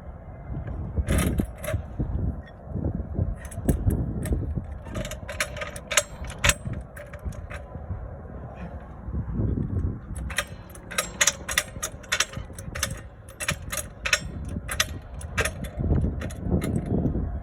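Car jack being set under the car and cranked up: a series of sharp metallic clicks and clinks, coming in a quicker run for several seconds near the end, with wind rumbling on the microphone.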